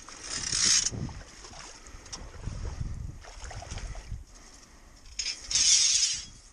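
Shallow pond water splashing and sloshing as a trap chain and cable are hauled through it by hand, in two loud bursts: one just after the start and one about five and a half seconds in. Between them come low rumbling thumps.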